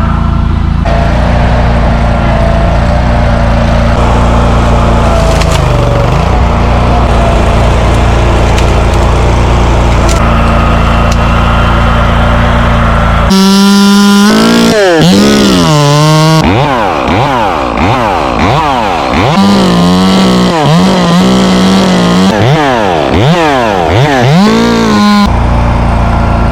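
A steady engine drone for about the first half, then a chainsaw running at high revs, its pitch dipping and climbing again and again for about twelve seconds, before the steady drone returns near the end.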